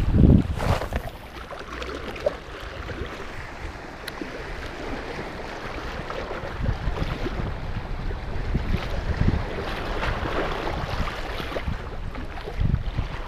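Wind buffeting the microphone of a body-worn camera in irregular low gusts, strongest in the first second, over a steady wash of sea water on shore rocks.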